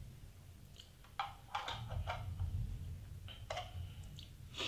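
A run of irregular clicks and light scrapes from a small metal tin being handled and fidgeted with in the hands.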